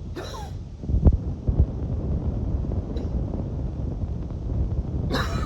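A person's wheezy breathing: a rasping breath with a whistling tone at the start and again near the end, and two short, low, muffled thumps about a second in, over a steady low rumble close to the microphone.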